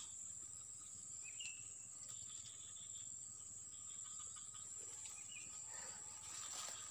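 Steady high-pitched insect drone, with a few short chirps around a second and a half in and again near five seconds.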